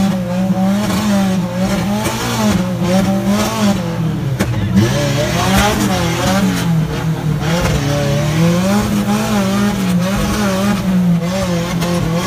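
Off-road 4x4's engine under load in a deep trench, revving with its pitch rising and falling over and over as the throttle is worked.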